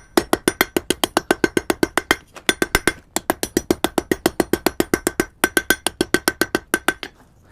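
Hand hammer striking hot iron flat stock on the anvil face in a fast, steady rhythm of about six ringing blows a second, drawing the bar out into a longer taper. The blows break off briefly about three seconds in and stop near the end.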